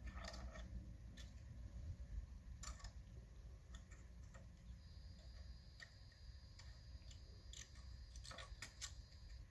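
Faint scattered clicks and taps, a few of them close together near the end, with a thin steady high tone through the second half.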